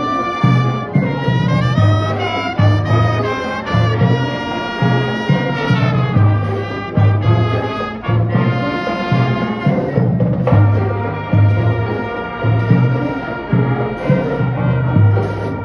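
Danzón music played by brass instruments over a regular bass pulse, with a melody that moves for the first ten seconds or so and then settles into long held chords.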